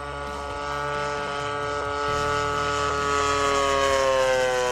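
Radio-controlled model airplane's motor and propeller running in flight. It is a steady pitched hum that grows louder about two seconds in, then slides slowly lower in pitch as the plane passes.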